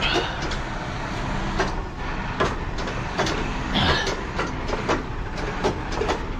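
Heavy recovery truck's diesel engine running steadily while its hydraulic underlift crosshead is moved by radio remote control, with a dozen or so short metallic clicks and knocks along the way.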